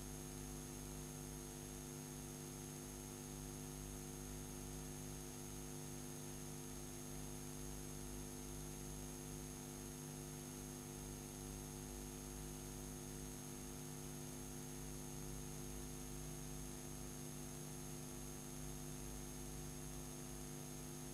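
Steady electrical mains hum with a buzzy stack of overtones over constant hiss, with a faint thin high whistle; no programme sound, as from a blank stretch of videotape on playback.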